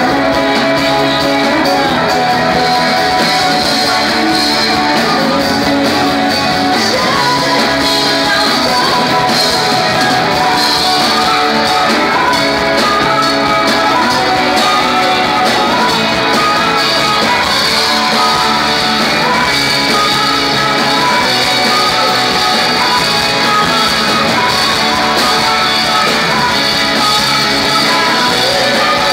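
Live band playing loud, dense rock music, with guitars and a singing voice.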